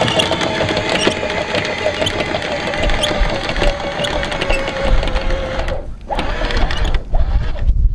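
Electric anchor windlass on a sailboat's bow running, a steady motor whine with the anchor chain clattering link by link over the gypsy. It stops about six seconds in, then runs again in two short bursts.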